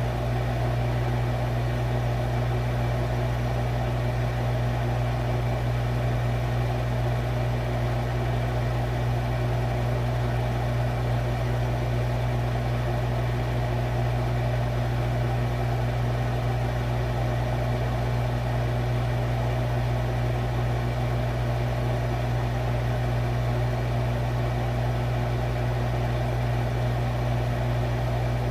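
Refrigerator running: a steady low hum that never changes.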